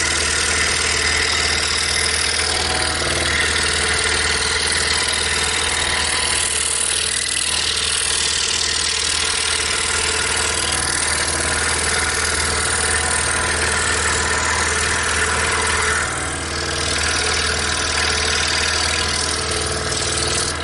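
Scroll saw running steadily as its blade cuts a small part out of quarter-inch plywood, with a constant motor hum under the sawing.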